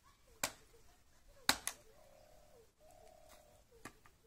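A dove cooing: two low, steady held notes a little under a second each, with four sharp clicks around them, the loudest about a second and a half in.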